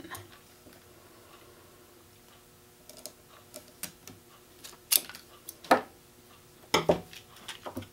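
Heavy kitchen shears cutting through a white two-prong extension cord: a run of sharp clicks and snips after a quiet start, the loudest a few seconds in.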